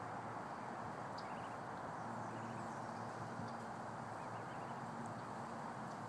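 Steady outdoor background hiss with a few faint, short, high bird peeps.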